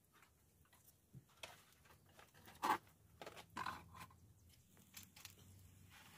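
Scattered light clicks and knocks of things being handled at a clay charcoal stove with a wire grilling basket, sharpest a little under three seconds in and again around three and a half seconds.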